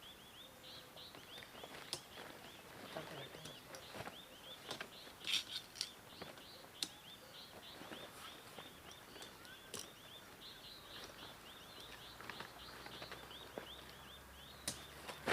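A small bird calling on and on with short, high, falling chirps, several a second, over scattered clicks and rustles of handling.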